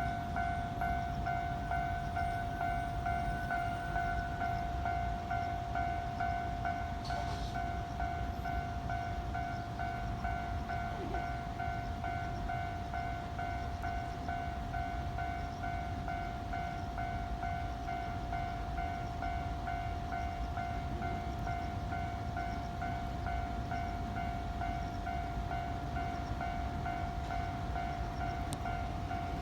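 Japanese level-crossing warning bell ringing, a steady repeating electronic ding, over the low rumble of trains passing the crossing.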